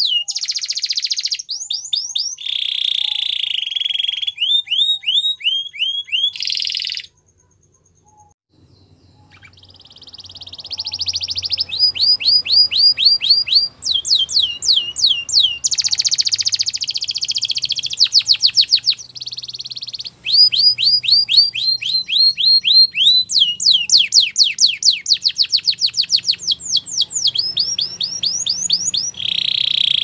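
Canary singing: long runs of rapid, piercing trills and rolls of high repeated notes. The song breaks off for a second or so about seven seconds in, then fades back up and carries on.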